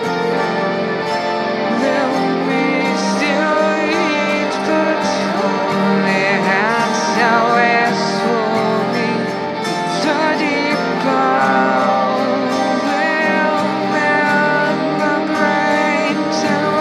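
Music: a slow song with guitars, with a lead line that bends and wavers in pitch over a sustained backing.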